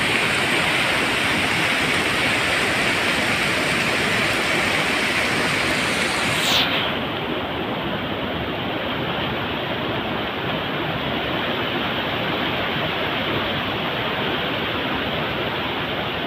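Heavy downpour with rainwater gushing out of drainpipe outlets into a concrete gutter: a steady, dense rush of water. A brief click comes about six and a half seconds in, and after it the sound is duller.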